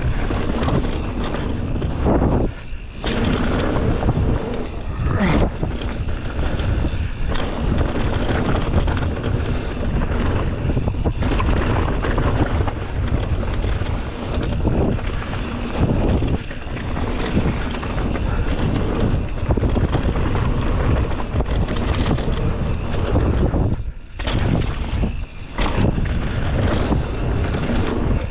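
Wind rushing over the microphone of a downhill mountain bike at speed, with the bike's tyres, chain and suspension rattling and knocking over rough trail. The noise eases briefly twice.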